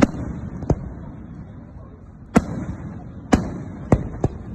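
Fireworks bursting: six sharp bangs at uneven intervals over a steady low background rumble.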